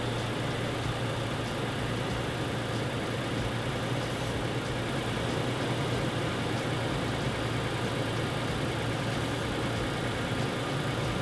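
Toyota Tacoma pickup's engine idling steadily, a low, even hum.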